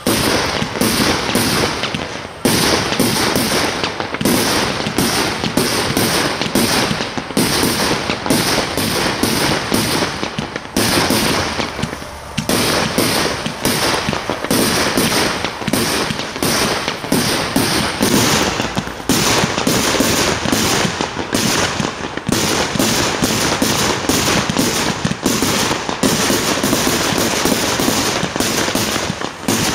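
Aerial fireworks firing in rapid succession: a near-continuous barrage of launch thumps and bursts, easing briefly about two seconds in and again about twelve seconds in.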